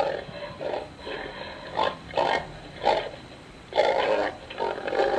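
Domestic pig grunting: a quick run of short grunts, roughly two a second, played as a recorded sound effect.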